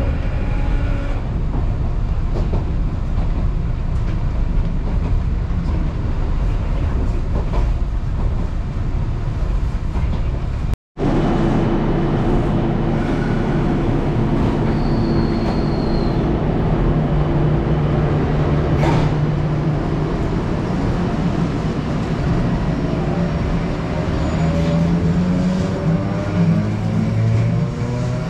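Kyoto Randen (Keifuku Electric Railway) tram: first the low rumble of the car running, heard inside the cabin. After a sudden cut comes a steady electrical hum from a tram standing at a platform, and a few seconds before the end a motor whine rising in pitch.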